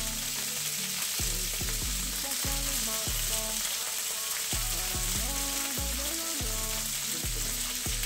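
Fresh sausage pieces sizzling steadily as they fry in a little olive oil in a skillet.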